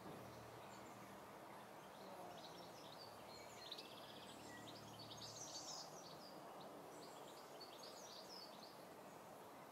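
Near silence: faint birds chirping with short calls and quick trills over a steady background hiss, with a low hum that fades out about halfway through.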